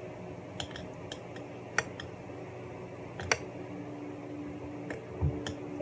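Light clinks and taps of kitchen utensils against dishware, about eight scattered strikes, over a faint steady hum.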